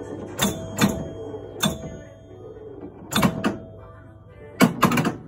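1970 Gottlieb Aquarius electromechanical pinball machine in play: sharp mechanical clacks as its coils fire, several followed by a ringing chime tone, and a quick run of clacks near the end.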